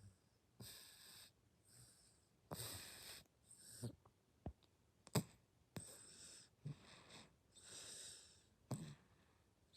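A six-month-old baby snoring softly in sleep: quiet, breathy, wheezy snores about once a second, with a few small sharp clicks, the loudest about five seconds in.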